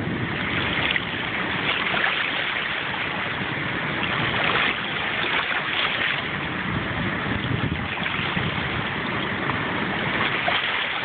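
Water rushing steadily out of the dam's spillway gates and churning in the white-water tailrace below.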